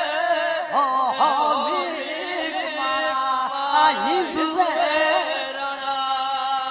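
Rabari devotional folk song (a regadi to Pabu Dada) sung solo in a chant-like style. The voice holds a long note, slides through bending ornamented turns for several seconds, then settles on another held note over steady sustained tones.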